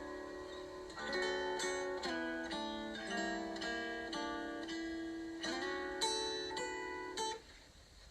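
Background music: a plucked string instrument playing a melody of separate ringing notes, breaking off briefly near the end.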